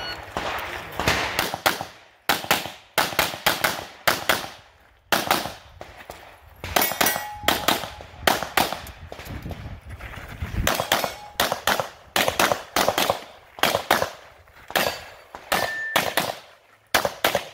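Rapid pistol shots from a red-dot-sighted competition handgun during a timed stage run, fired mostly in quick pairs with short breaks between groups as the shooter moves between positions.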